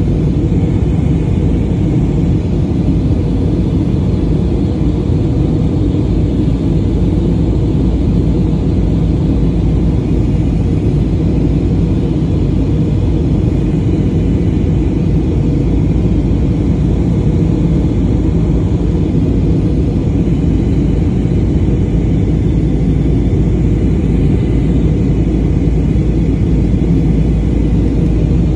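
Airplane cabin noise in flight: a steady, loud rumble of engines and rushing air, even throughout with no changes.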